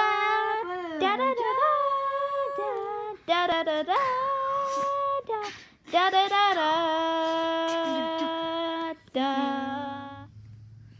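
A single voice singing a slow, wordless tune of long held notes, in phrases with short breaks between them. It stops near the end.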